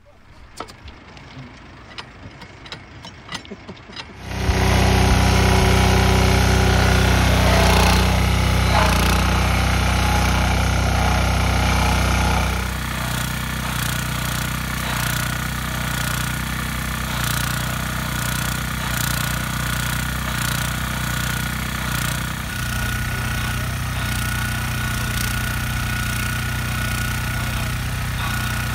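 Faint crackling for the first few seconds, then, about four seconds in, a petrol-engined rail grinder running loud and steady. From about twelve seconds the sound changes to a rougher, grittier running as the grinding wheel cuts into the thermite weld, rough-grinding off the waste metal.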